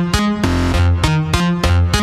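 Electronic background music with a steady beat, synth bass and keyboard chords.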